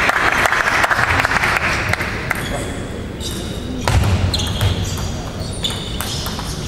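Applause dying away over the first two seconds, then a table tennis rally: the celluloid ball clicking sharply off the rackets and table about every half second. A few low thumps come about four seconds in.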